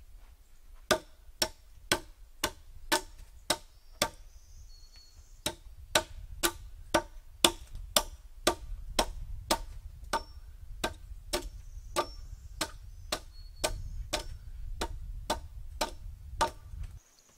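Steady blows of a hand tool on timber, about two strikes a second, with a pause of a second or so about four seconds in.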